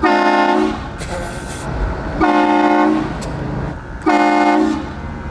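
Air train horn giving three short blasts about two seconds apart, each under a second long and sounding several notes at once, with road noise between them.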